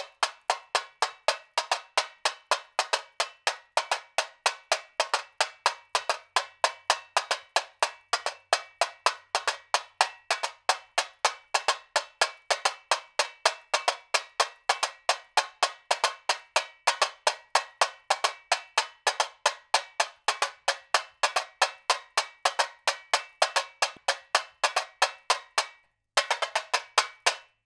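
Tamborim, a small hand-held samba frame drum, struck with a thin plastic stick in the telecoteco rhythm at 110 beats per minute: a quick, steady run of sharp, high, cracking strikes. Near the end it breaks off for a moment, then a short last flurry of strikes ends the pattern.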